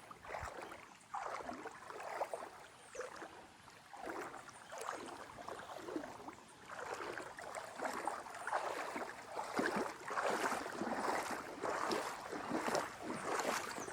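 Shallow mountain river flowing over rocks, an uneven rushing wash that swells and grows louder in the second half.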